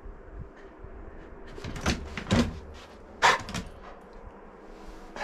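Three sharp clacks within about a second and a half, the last the loudest, over a low steady background.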